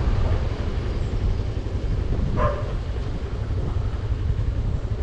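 Motor scooter riding slowly, its engine and wind rumble on the microphone steady throughout. One short dog bark about two and a half seconds in.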